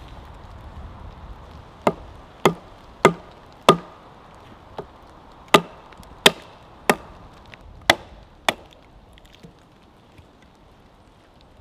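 Axe chopping into a log: ten sharp blows, mostly about two-thirds of a second apart, one of them faint, with a short break after the fourth.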